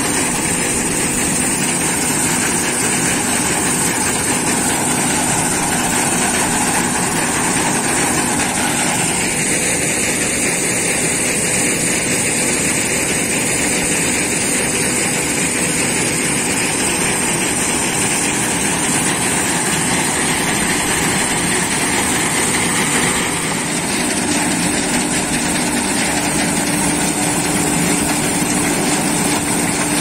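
John Deere combine harvester running steadily while parked, threshing cut mustard stalks fed by hand into its header. Its steady engine and threshing drone shifts slightly in pitch about nine seconds in, and rises a little about three quarters of the way through.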